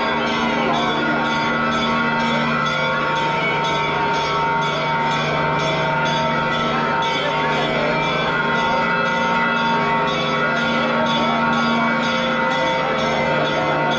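Church bells ringing continuously in rapid, overlapping strikes, many tones sounding at once, over the din of a large crowd's voices.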